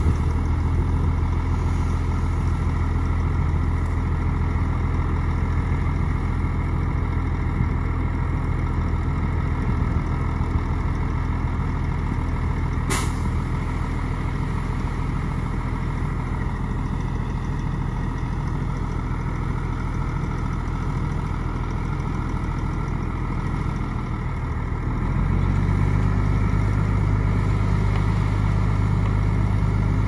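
Heavy earthmoving machine's diesel engine running steadily. There is one short sharp click about thirteen seconds in. Around twenty-five seconds in the engine gets louder and its note rises a little, as if taking on load or revving up.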